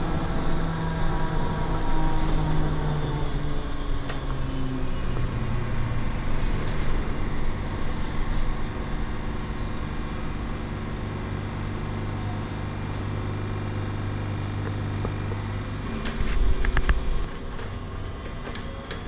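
Scania electric bus's traction motor whining inside the cabin over road and tyre noise; the whine falls steadily in pitch over the first several seconds as the bus slows, then holds low and steady. About sixteen seconds in there is a short, louder burst of low rumble with a few sharp clicks.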